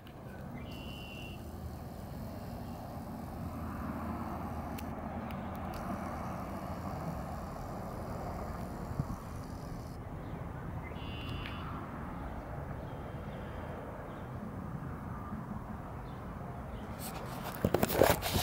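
Steady low outdoor rumble of distant traffic. Near the end, loud rustling and buffeting on the microphone.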